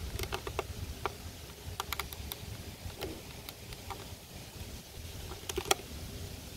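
Light clicks and taps of the hatches on a scale-model Tiger tank's turret being flipped open and shut by hand, the loudest about five and a half seconds in. Wind rumbles on the microphone throughout.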